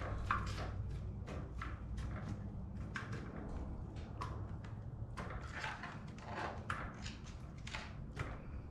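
Soft irregular knocks and taps, about two a second, as pieces of catfish are laid one by one into a plough-disc pan over a layer of vegetables, over a steady low hum.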